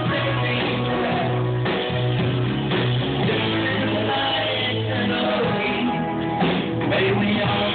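Live band music: guitars and bass playing an instrumental passage of a folk-rock song.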